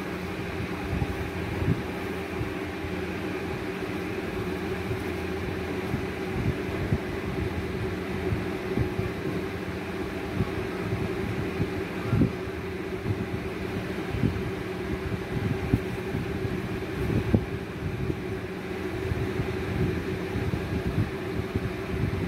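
A steady mechanical hum with a constant low tone, like an electric motor or fan running, with scattered soft low thumps throughout.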